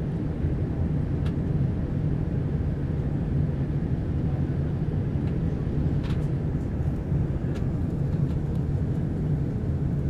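Cabin noise inside an Airbus A321 airliner in flight: a steady low rumble of engines and rushing air. A few faint clicks come from the cabin, one about a second in and two more around six and seven seconds.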